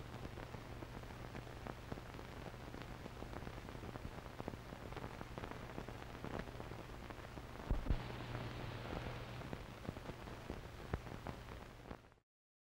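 Background noise of an old film soundtrack: a steady hiss with a low hum and scattered crackles and pops. It cuts off suddenly into silence near the end.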